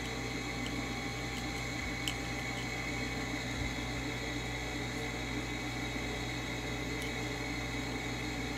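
Steady machine hum with a hiss, from a running indoor appliance, with a few faint ticks about two seconds in and near the end.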